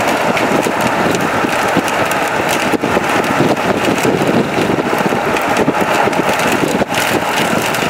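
Car driving at speed: steady, loud road and wind noise heard inside the cabin, with a fine crackle running through it.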